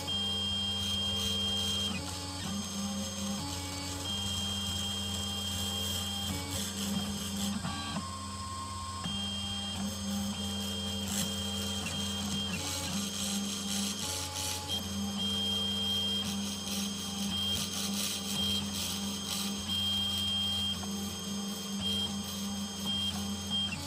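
Small desktop CNC router milling the copper around a circuit board's traces with a conical engraving bit: the spindle motor runs steadily while the stepper motors whine in tones that change and break off every second or two as the axes move and change direction.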